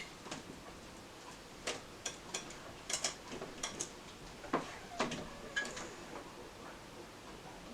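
Irregular sharp clicks and taps, about ten of them scattered over a few seconds, over a faint steady hiss.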